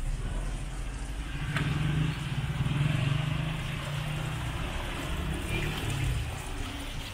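City street traffic: car engines and tyres passing on the road, a steady low rumble that swells about two to three seconds in.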